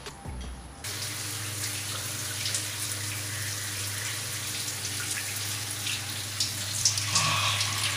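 Water running steadily with some splashing, as from a bathroom tap or shower. It starts about a second in, and the splashes grow more frequent near the end.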